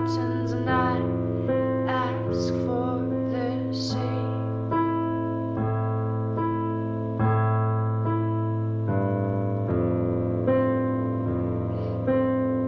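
Electronic keyboard played in a piano voice: chords struck a little more than once a second over a held low bass note. A voice sings softly over the first few seconds.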